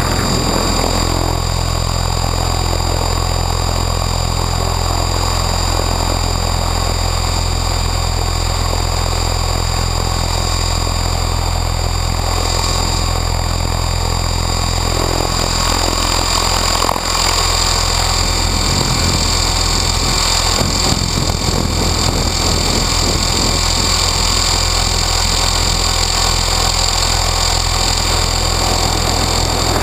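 Align T-REX 600E Pro electric RC helicopter heard from a camera on its canopy in flight, running on a 6S pack: a steady rotor hum with a high, steady motor whine above it. Wind buffets the microphone throughout.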